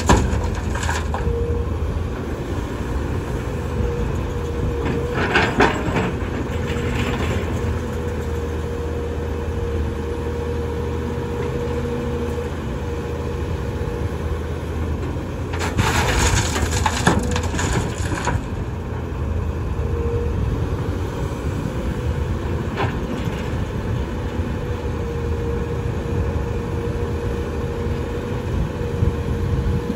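A SANY SY215C hydraulic excavator runs under load with a steady whine over its diesel engine, digging and dumping bucketloads of earth into a steel dump-truck bed. There are several crashing bursts of dirt and rock, the loudest between about sixteen and eighteen seconds in.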